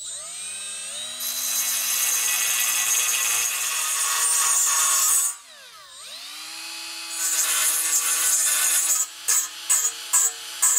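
Cordless die grinder spinning up with a rising whine and grinding away the steel edge of the rear brake backing plate to clear a big-brake caliper bracket. It stops about five seconds in and winds down, then spins up and grinds again, ending in several short trigger bursts.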